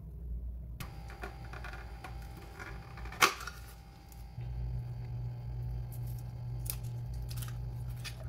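Handling noises from a round cardboard box of foil-wrapped processed cheese wedges: a single sharp snap about three seconds in as the lid comes off, then light rustling and crinkling of foil as a wedge is unwrapped. A steady low hum runs underneath.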